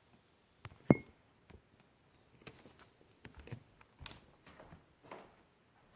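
Scattered knocks, taps and rustles of handling and movement in a small room, with one sharp knock about a second in that is the loudest sound.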